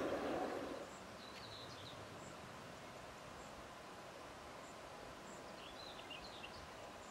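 A steady noise cuts off suddenly under a second in. After that there is faint outdoor background with two short bursts of bird chirps, one early and one near the end.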